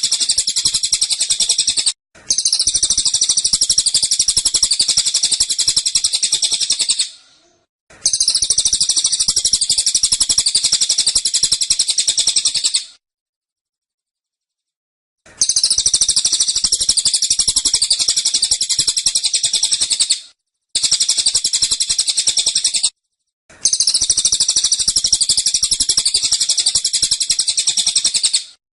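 Cililin songbird singing its 'tembakan' (shooting) song: dense, rapid, high-pitched trilling phrases a few seconds long, broken by short silent gaps.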